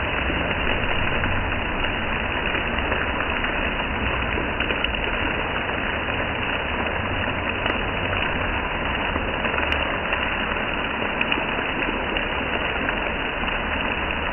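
Steady rain: an even, unbroken hiss with a low rumble underneath and a few faint ticks.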